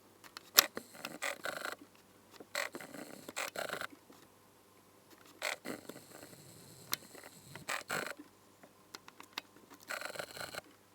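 Irregular clicks, knocks and short rustles of hands handling things on a workbench, with a sharp click about half a second in.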